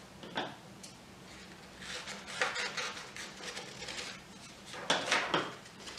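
Scissors cutting construction paper: a few short snips and paper rustles, grouped about two seconds in and again about five seconds in.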